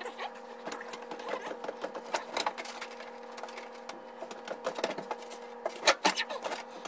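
Rapid, irregular clicks and clanks of hand tools on metal under the truck, over a steady machine hum.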